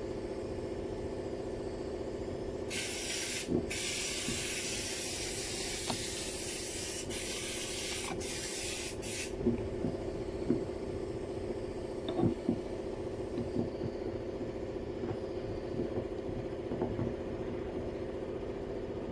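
A pressurized spray hisses for about six seconds, broken by a few short pauses, over a steady machine hum. Light clicks of small parts being handled follow.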